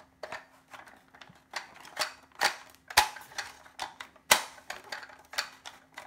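Plastic magazine of a G3 SAS airsoft electric gun clicking and knocking in the magwell as it is pushed in and tapped by hand: a series of irregular sharp clicks, the two loudest about three and four seconds in. The magazine seats without rattle or play.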